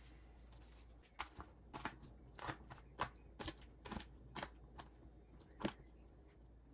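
Diced raw kohlrabi cubes being tossed with salt in a plastic tub, giving a string of about a dozen light, irregular clacks and knocks as the cubes tumble against each other and the tub. The clacks start about a second in, and the loudest comes near the end.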